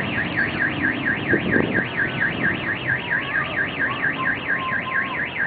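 Electronic alarm siren warbling rapidly up and down, about five sweeps a second, over a low background rumble.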